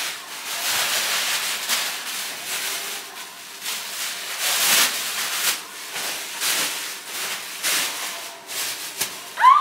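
Plastic shopping bags and packaging rustling and crinkling in uneven bursts as groceries are handled, with a short rising tone near the end.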